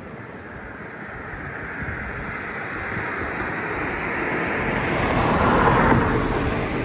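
KiHa 47 diesel railcar passing over a level crossing: a rushing rumble that grows louder, peaks near the end, then begins to fall away.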